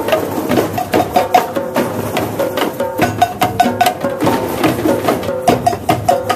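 A large drum circle of many hand drums and percussion instruments playing together in a dense, steady rhythm of many strikes a second, with some pitched drum tones ringing through.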